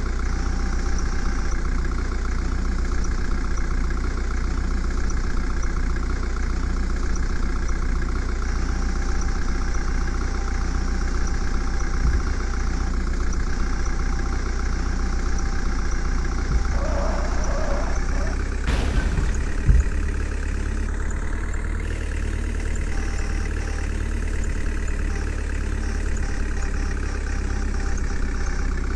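A heavy vehicle's engine idling steadily, with a short sharp knock about two-thirds of the way through.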